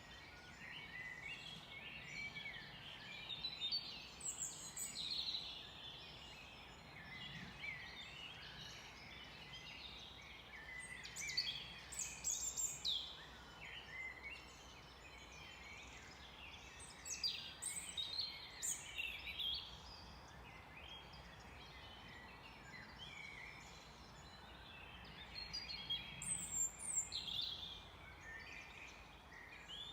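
Several songbirds singing and calling in a forest chorus: overlapping quick chirps and whistles that come in clusters every several seconds, over a steady low background hiss.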